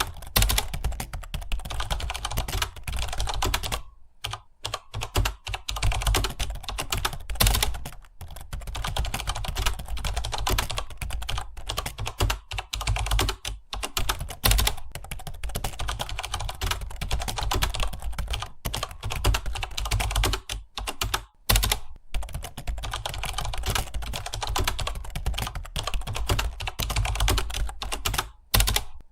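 Rapid, continuous typing on a computer keyboard: a dense clatter of key presses with brief pauses every few seconds.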